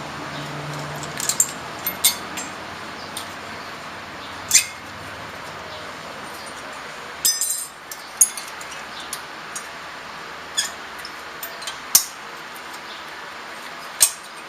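Scattered metallic clinks and taps of brake pads, clips and hand tools being handled at a brake caliper, with a brief ringing metal clatter about seven seconds in.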